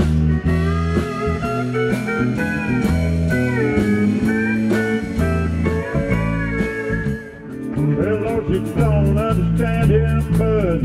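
Live country band playing: a pedal steel guitar's sliding notes over a stepping bass line and drums. About seven and a half seconds in, the music dips briefly and comes back brighter, with more cymbal.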